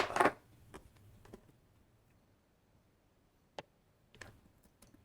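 A short clatter, then scattered light clicks and taps of handling on a repair bench.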